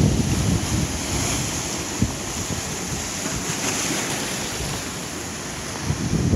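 Ocean surf breaking over black lava rocks and washing through them as a steady hiss of foam. Wind buffets the microphone, easing in the middle and gusting up again near the end.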